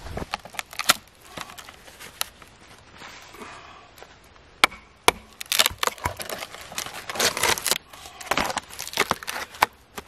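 Knife blade scraping and cutting into a slab of tree bark on a wooden chopping block, in quick rasping strokes with sharp cracks, busiest in the second half. A few sharp wooden knocks in the first second.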